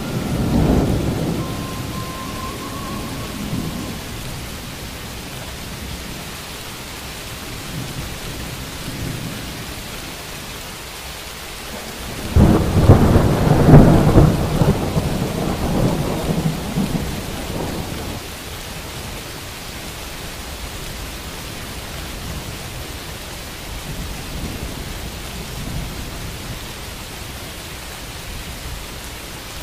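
Steady rainfall with thunder: a rumble in the first few seconds, then a loud thunderclap that starts suddenly about 12 seconds in and rolls away over the next five or six seconds.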